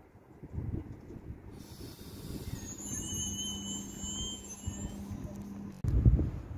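Double-deck night-train carriages rolling slowly past, giving a high-pitched metallic squeal over a steady low hum for a few seconds in the middle. Near the end the sound switches to loud, gusty wind buffeting the microphone.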